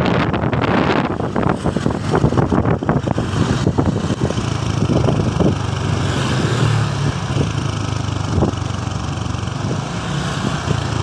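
A large road vehicle, most likely a bus, with its engine running as a steady low hum under road noise; rough wind buffeting on the microphone in the first second or so.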